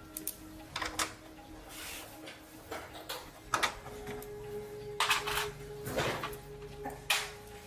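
Irregular clicks and knocks of tools and small parts being handled, about a dozen over the stretch, over a faint steady hum.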